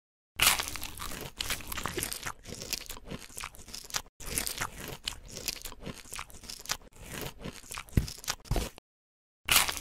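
Crisp ASMR crunching and crackling, dense and continuous, with a brief break about four seconds in; it stops about a second before the end.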